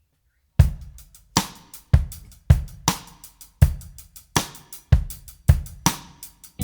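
Background music: a drum beat played alone, with kick, snare and hi-hat. It comes in after about half a second of silence and keeps a steady rhythm.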